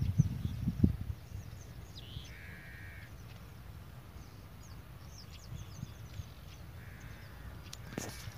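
A bird calling twice in the background, each call about half a second long, with faint chirps from small birds. A few low thumps come in the first second.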